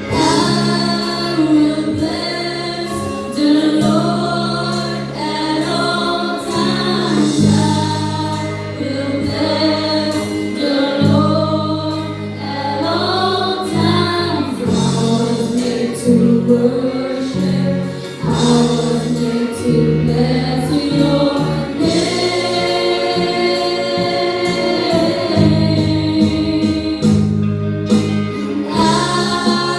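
A junior praise-team choir singing a gospel-style worship song in unison, over steady low instrumental backing.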